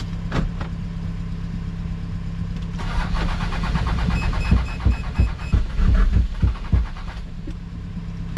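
Starter cranking the broken-down Nissan Patrol's engine for about four seconds in uneven pulses, starting about three seconds in, while a high dashboard chime beeps rapidly. A steady low engine hum runs underneath.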